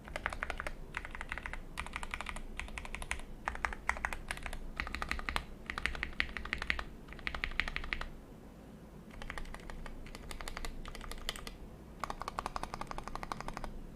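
Typing on a custom 65% mechanical keyboard with Krytox-lubed Tealios V2 linear switches, a polycarbonate plate, case foam and PBT keycaps: fast runs of keystrokes in bursts with short pauses, easing off briefly a little past halfway before picking up again.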